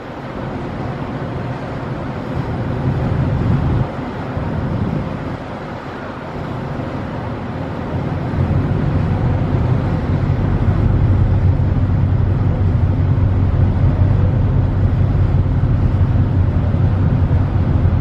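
Steady low rumble of a ferry's engines with wind and water noise on deck, growing louder from about eight seconds in.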